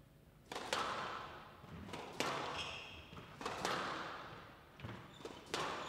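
Squash ball being struck by rackets and hitting the walls of a glass court during a rally: a sharp crack every second or so, each echoing in the hall. Shoes squeak briefly on the wooden floor midway through.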